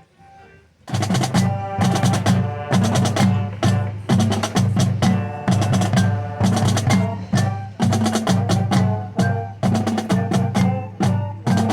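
Marching drumline playing with pitched mallet percussion: a soft passage of faint notes, then about a second in the full drumline comes in loudly, snares and pitched bass drums striking in a driving rhythm under sustained keyboard notes.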